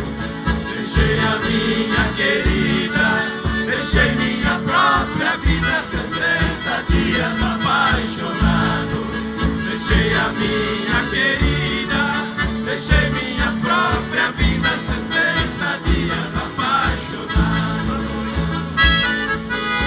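A live band playing Brazilian country (caipira) music with a steady bass beat. A harmonica comes in near the end.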